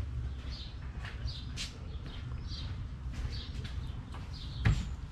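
A bird chirping, a short high note repeated about once a second, over a steady low rumble. A sharp thump near the end.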